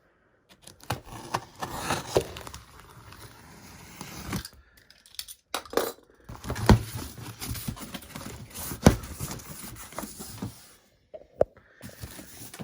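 A cardboard shipping box being opened and unpacked by hand: cardboard tearing and rustling with irregular scrapes and knocks, the sharpest knocks about six and a half and nine seconds in.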